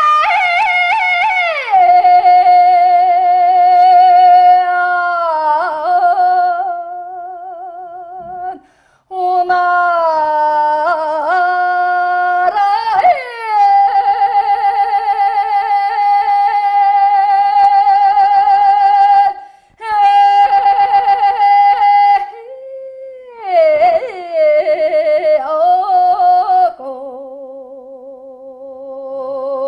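Mongolian long song (urtyn duu) sung by a woman: long drawn-out held notes with quick wavering ornaments and sudden leaps in pitch, broken by a few short pauses for breath.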